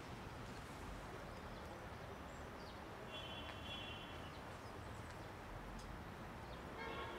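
Faint steady outdoor background noise with short, high bird calls, one about three seconds in and another just before the end.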